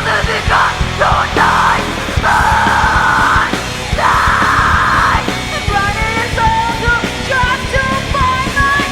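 Loud punk rock with screamed vocals over pounding drums and guitar. Two screamed lines come in the first half, then the voice drops out and a higher melodic lead line takes over.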